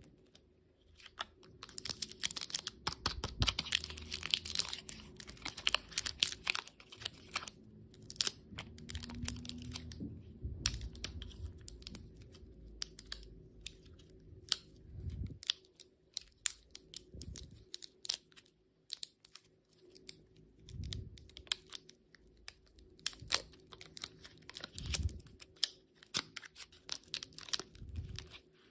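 Candy packaging handled and torn open by hand: a long run of sharp crinkles, crackles and clicks, with a few dull knocks now and then.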